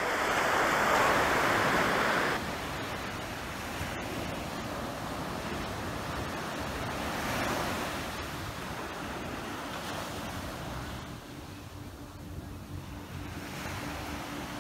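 Pacific Ocean surf washing onto the beach, with wind buffeting the microphone. It is loudest for the first two seconds and then drops abruptly to a steadier wash. A faint steady hum joins near the end.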